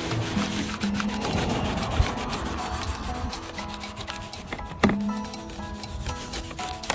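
Rubbing and scrubbing by hand on a fiberglass RV roof, with a sharp knock about two seconds in and a louder one near five seconds.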